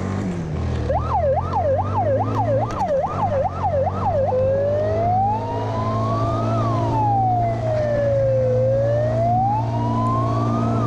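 A siren on an ATV, sounding a fast yelp of about three rising-and-falling sweeps a second, then switching about four seconds in to a slow wail that climbs and falls over a few seconds. The ATV's engine hums steadily underneath.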